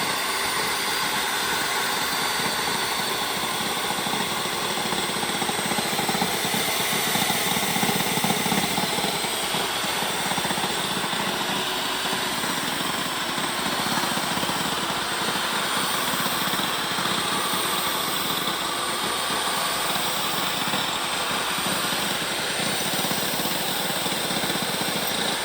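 DeWalt table saw running steadily, its blade cutting PVC trim, with a faintly wavering high whine and a slight swell in loudness about six to nine seconds in.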